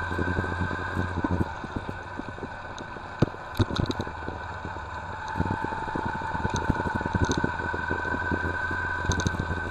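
Yamaha XV250 Virago's V-twin running as the motorcycle is ridden, with a steady high-pitched whine at two pitches over the engine noise and a few sharp ticks.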